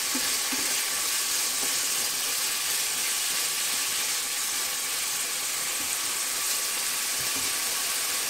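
Chicken livers and onion frying in oil in a frying pan, sizzling steadily, stirred with a wooden spatula.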